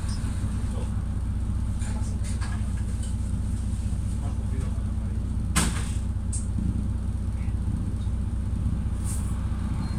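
Mercedes-Benz Citaro city bus engine running under way, a steady low drone heard inside the passenger cabin, with a few light rattles and one sharp click about five and a half seconds in.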